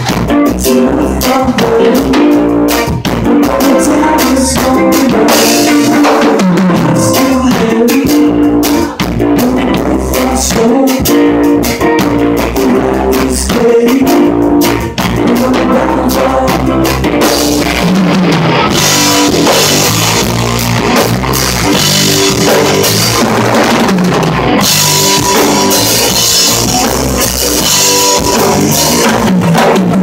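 Live band playing loud amplified music: an electric bass line over a drum kit, with guitar. About two-thirds of the way in, the drumming gets brighter and busier.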